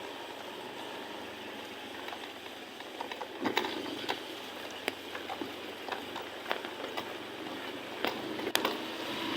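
Stir-frying at a street-food wok: a metal spatula clinks and scrapes against the wok at irregular intervals from about three seconds in, over a steady sizzling hiss.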